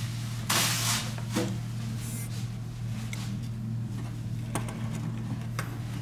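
Light handling noises of a disassembled smartphone and its USB charging cable: a short rustle about half a second in, then a few sharp light clicks, over a steady low hum.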